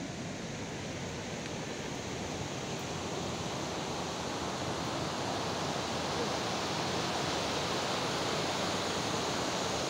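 River water rushing over a low rocky ledge in a steady white-water cascade, growing somewhat louder about halfway through.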